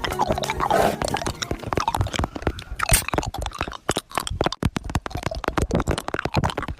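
Plastic packaging crinkling and rustling as it is handled and opened, a dense run of irregular crackles.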